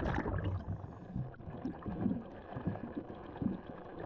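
Underwater sound around a scuba diver: a rush of exhaled regulator bubbles fading away at the start, then low, irregular gurgling and muffled knocks.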